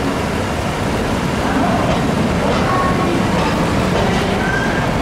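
Old-type passenger coaches (SuHaFu 42 type) rolling past at a station platform: a steady rumble of wheels on rail, with a few brief high squeals over it.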